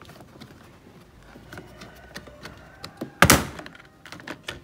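Plastic tweeter cover trim on a Mitsubishi Triton's door corner being pulled off by hand: light plastic clicks and rubbing, then one loud snap a little after three seconds in as its clip lets go, followed by a few small clicks.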